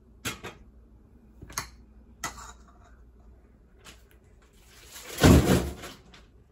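Kitchen clicks and light knocks, a handful spread over the first four seconds, then a louder noise lasting about a second around five seconds in.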